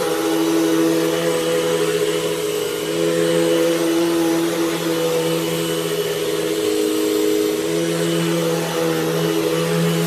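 Hoover Elite Rewind upright vacuum cleaner running steadily as it is pushed over a rug, a steady motor hum with rushing air whose pitch wavers slightly with the strokes.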